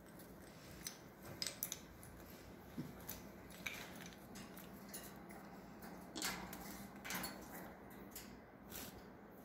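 Green-cheeked conure's claws and beak clicking on the metal wire of its cage as it climbs: a faint, irregular scatter of small clicks and rustles, a little louder twice in the second half.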